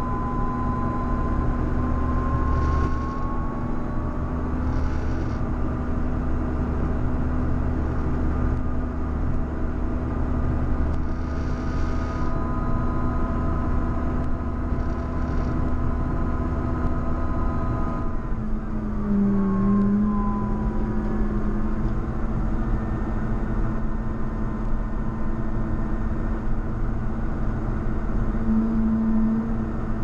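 JCB Fastrac 4220 tractor's six-cylinder diesel engine running steadily while the tractor pushes a front snow plough. About two-thirds of the way through, the engine note glides down and settles at a lower steady pitch.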